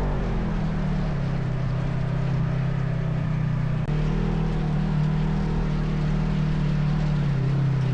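ATV engine running steadily under way, a constant low drone with a short break about four seconds in.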